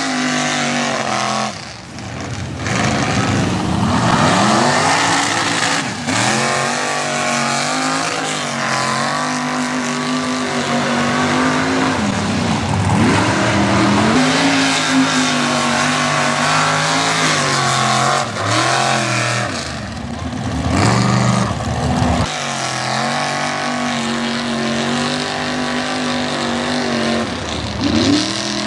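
Mud bog truck's engine running at high revs as it churns through a mud pit, the revs dropping and climbing again several times as the tyres bog down and spin back up.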